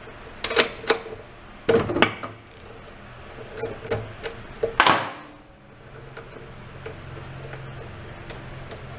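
Metal clinks and clicks of a steel spark plug socket and extension being fitted onto a lawn mower engine's spark plug, with the loudest clank about five seconds in. After that only a low steady hum and a few faint ticks.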